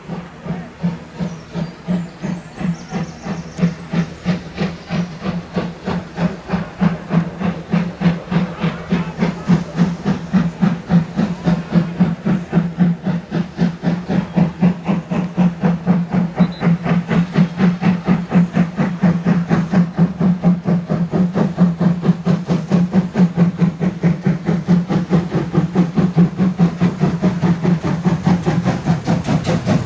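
Steam locomotive exhaust chuffing in an even rhythm, the beats growing louder and coming faster as the engine works a train, with hissing steam.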